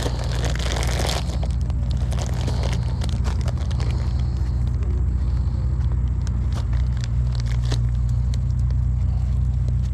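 A steady low engine-like drone, with crackling and rustling of a clear plastic bag being handled close to the microphone.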